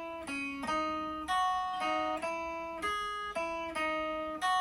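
Guitar playing a single-note picked riff, about a dozen separate notes, through a TC Electronic Forcefield compressor pedal with its sustain knob at zero. The compression is essentially off, so each note starts sharply and dies away on its own.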